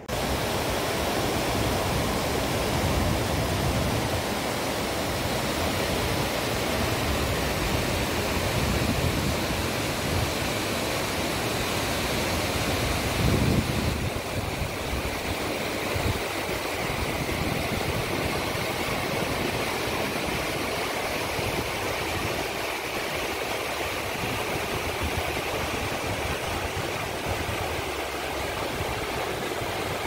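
A rocky mountain stream rushing over stones: a steady, even noise.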